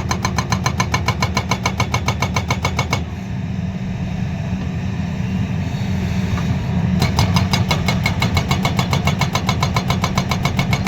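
Pultvizor SV240 Prime hydraulic breaker on a JCB JS210 excavator hammering laterite rock in rapid, even blows, about ten a second, over the excavator's steady diesel engine. About three seconds in the hammering stops for roughly four seconds while the engine keeps running, then it resumes.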